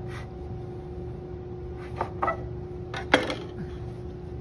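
Metal bench scraper cutting through bread dough and knocking against a wooden bench: a few sharp knocks about two seconds in, the loudest just after three seconds, over a steady background hum.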